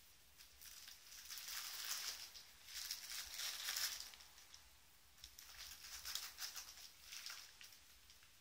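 Bubble wrap crinkling and rustling as a cat steps and shifts about in it. It comes in two stretches of faint crackly rustling, with a short lull about halfway through.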